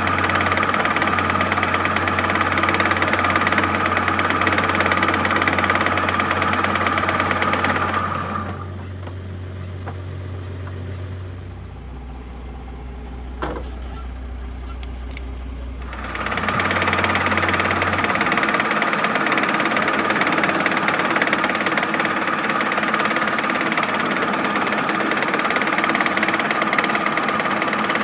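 Metal lathe running, its tool cutting a small metal workpiece with a steady grinding whine. About eight seconds in it winds down and stays much quieter for about eight seconds, with a single sharp click, then starts again and cuts steadily.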